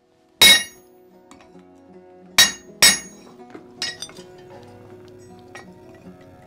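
A hammer striking a hafted hot-cut chisel held on red-hot steel on an anvil, trimming excess metal from a forged tomahawk head. Three loud, sharp metal strikes ring out, the first about half a second in and two close together near the middle, followed by a lighter one. Quiet background music plays underneath.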